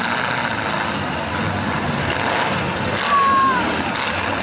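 Engines of old full-size demolition derby cars running and revving on a dirt track, with steady crowd noise; a brief high tone glides down about three seconds in.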